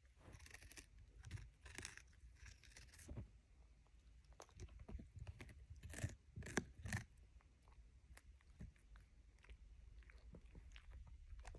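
Faint chewing and crunching by an Alaskan Klee Kai puppy, in irregular clusters of short crackly bites, loudest in a quick group about halfway through.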